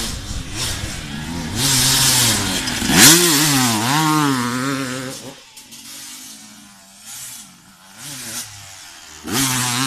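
Enduro dirt bike engine revving hard as the bike climbs and jumps the crest close by, its pitch swinging up and down with the throttle, loudest about three seconds in, then dropping away to a faint drone. Near the end another bike's engine comes in loud.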